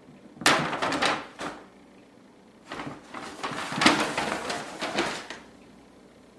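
A grocery bag rustling and crinkling as kittens play in it: a short bout about half a second in, then a longer bout from about three seconds in until past five.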